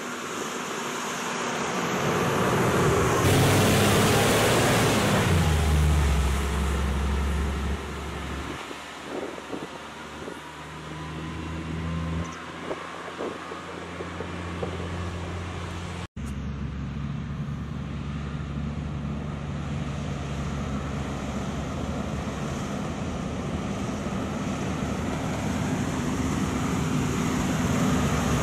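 Volvo R100 rigid dump truck's big diesel engine running as the truck drives by on a gravel road. It is loudest a few seconds in, and its note steps down soon after. After a brief cut about halfway through, the engine note is steady and slowly grows louder as the truck comes closer.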